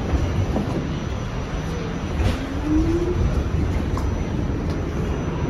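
Steady rumble inside an R46 subway car, with a short rising whine about two seconds in and a light click near the four-second mark.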